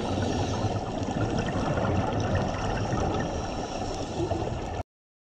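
Underwater sound picked up by a GoPro sealed in its dive housing: a muffled, rumbling wash of water noise with a scatter of small clicks and crackles. It cuts off suddenly near the end.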